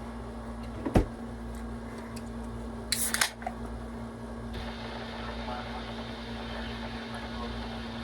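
A single sharp knock about a second in, then a short hissing rustle around three seconds, over a steady low electrical hum.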